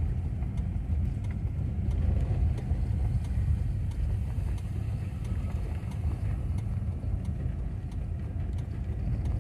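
Volkswagen Kombi van driving along, a steady low engine and road rumble.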